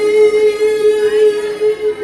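Live electronic music through a club PA: one sustained synthesizer note, held steady with a slight wavering pulse, with fainter higher notes above it.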